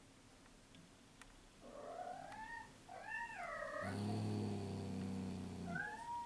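An aged domestic cat meowing: a rising, drawn-out call about two seconds in and a wavering call around three seconds. About two seconds of low, steady purring follows, then a short rising meow near the end.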